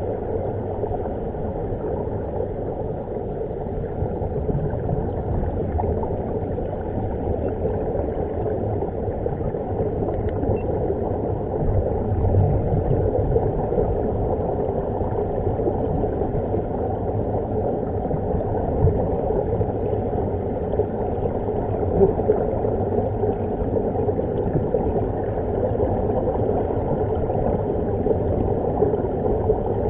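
Continuous rushing and bubbling of air streaming out of air-fed diving helmets, recorded underwater so it comes through muffled and low.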